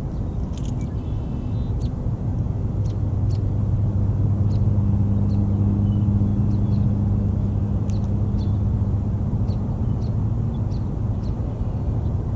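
A distant engine drone, steady in pitch, that grows louder for several seconds and then fades, with short bird chirps scattered through it.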